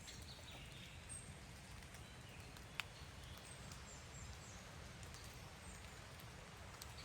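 Faint woodland ambience: scattered distant bird chirps over a low steady rumble, with one sharp click a little under three seconds in.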